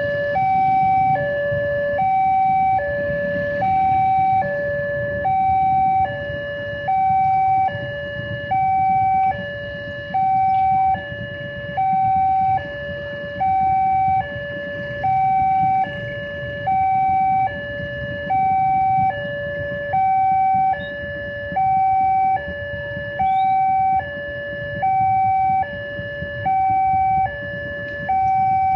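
Railway level-crossing warning alarm from the loudspeaker on the crossing signal post, sounding a steady two-tone hi-lo 'ding-dong' that alternates evenly, each tone held just under a second, while the crossing is closed for an approaching train.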